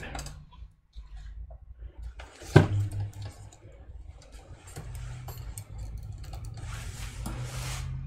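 Inflated air-column bubble wrap being handled and spread out on a workbench, with plastic rustling and crinkling and one sharp knock about two and a half seconds in.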